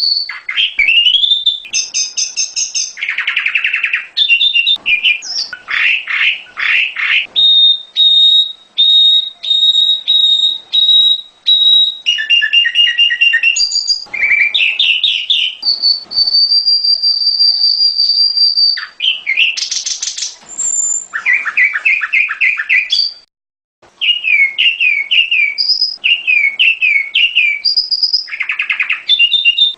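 Prenjak gunung (hill prinia) song: fast runs of sharp chirps and repeated clipped high notes, with a long steady high whistle held for about three seconds in the middle. A brief dead gap comes about 23 seconds in.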